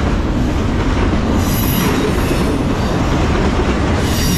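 Double-stack intermodal freight train's well cars rolling past: a loud, steady rumble of steel wheels on rail, with a high wheel squeal about a second and a half in and again near the end.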